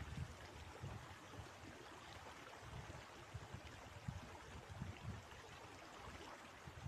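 Flowing river water, a faint steady rush, with irregular low gusts of wind buffeting the microphone.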